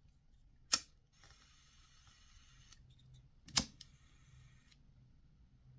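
Handheld butane lighter being sparked: two sharp ignition clicks about three seconds apart, each followed by a second or so of gas hissing, and a third click at the end.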